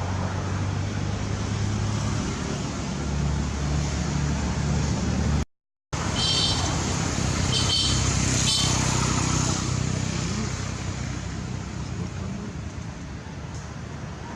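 A motor vehicle's engine running steadily nearby, over road traffic noise. Its pitch shifts a few seconds in, and a few short high chirps come in around the middle.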